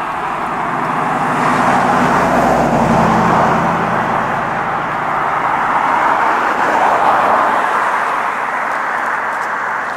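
Road traffic: a passing vehicle's steady rush of tyre and engine noise with a low engine hum under it, swelling about two seconds in and staying loud.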